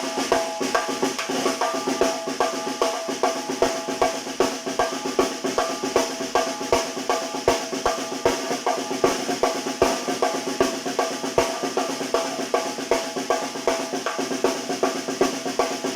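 Tarola (banda snare drum) played with sticks in a fast, steady son rhythm, with strokes on the metal rim (aro) mixed in with strokes on the head.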